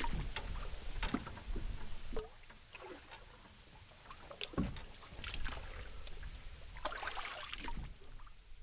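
Water splashing and dripping beside a boat as a dip net is swept through it, with scattered sharp knocks.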